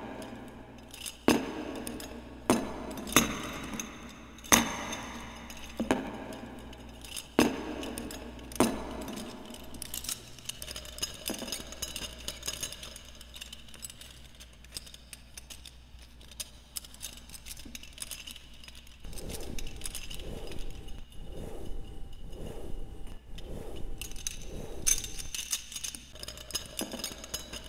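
A series of sharp metallic clanks with a ringing tail, spaced about a second or so apart, then a softer, even tapping at a little over one a second through the second half, with a few more clanks near the end.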